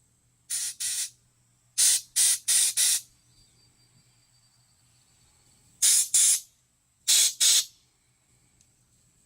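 Short, sharp hissing blasts of spray aimed through a small-engine carburetor's jets and passages to clear them, about ten in all, coming in quick groups of two to four.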